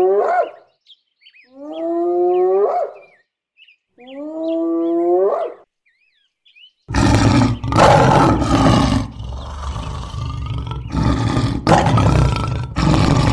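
A hyena calling three times, about two seconds apart, each call a pitched whoop rising at the end, with small bird chirps behind. About seven seconds in, a lion starts roaring and growling, loud and rough, in several surges.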